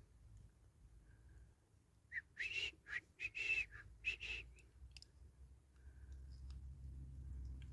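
A few short whistled notes in quick succession, some bending slightly in pitch, with a faint low hum that grows near the end.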